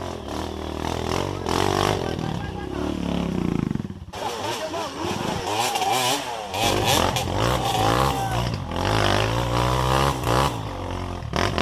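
Trail motorcycle engine revving, its pitch rising and falling again and again, then cutting off suddenly at the very end.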